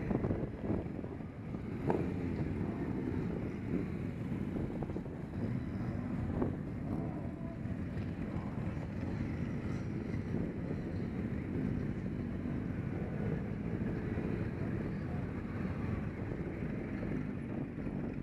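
Motorcycle engines running at low speed as a group of motorbikes pulls away together, with wind noise on the microphone.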